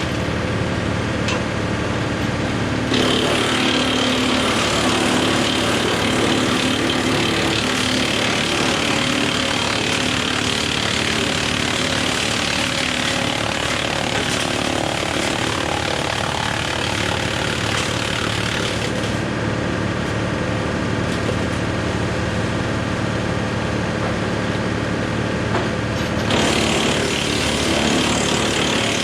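John Deere 4066R diesel tractor driving a Woodmaxx WM8 PTO wood chipper, running steadily and loudly; the sound changes abruptly three times.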